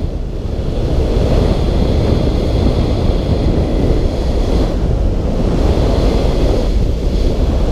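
Wind rushing over a skydiver's camera microphone high in the air: a loud, steady low rush of wind noise.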